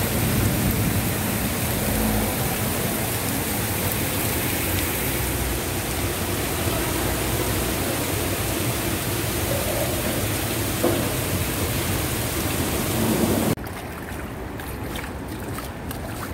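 Heavy downpour and rushing floodwater make a steady, dense hiss. About thirteen seconds in it drops suddenly to a quieter wash of water with a few light clicks.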